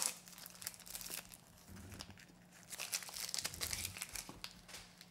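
Thin plastic wrappers of mozzarella string cheese sticks crinkling and tearing softly as they are peeled open, in faint, scattered rustles.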